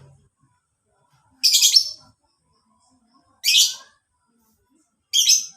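Lovebird calling in three short, high-pitched bursts, each about half a second long, spaced roughly a second and a half to two seconds apart.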